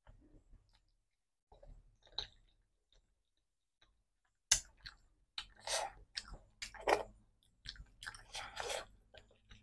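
Close-up chewing of rice and curry, mouth open: a few faint clicks at first, then from about halfway a dense run of irregular wet chewing clicks.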